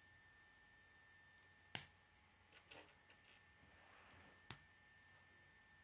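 K'nex plastic rods and connectors clicking as they are snapped together by hand: a handful of separate sharp clicks, the loudest about two seconds in, with a faint rustle of plastic parts handled in between.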